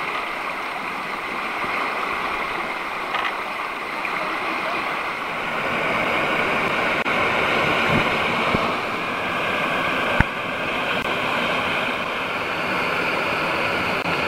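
Whitewater rapid rushing steadily over rocks, with a few brief knocks, the sharpest about ten seconds in.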